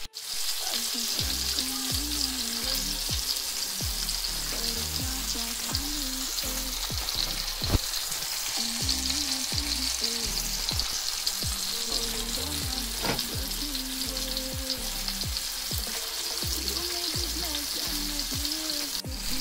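Flour-dusted Dover sole frying in hot olive oil and butter in a frying pan, giving a steady, even sizzle with a couple of sharper pops.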